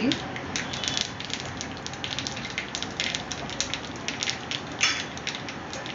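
Mustard and sesame seeds spluttering and crackling in hot oil for a tempering, with quick irregular pops over a steady sizzle and a louder burst of pops about five seconds in.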